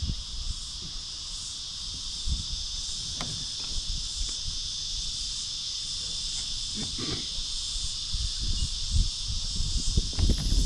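A large chorus of cicadas singing: a steady, dense, high-pitched buzz with a slight pulse. Low bumps and rumbles sit underneath.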